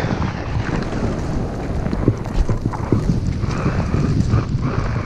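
Wind rushing over the microphone during a fast run down a slick, bumpy ski trail. Edges scrape on the snow throughout, with a rapid, uneven series of knocks and clatters as the rider goes over bumps.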